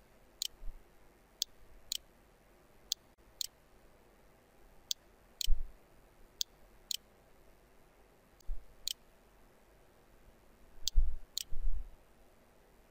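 Computer mouse clicking: about a dozen sharp clicks spaced irregularly, some in quick pairs. A few dull low thumps come in the middle and near the end, and they are the loudest sounds.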